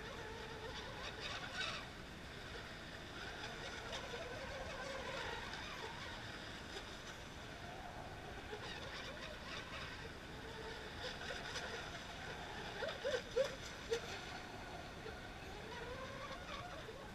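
Distant radio-controlled model boat engines whining, their pitch rising and falling as the boats race around the lake course. A few short, louder pitched sounds come about three-quarters of the way through.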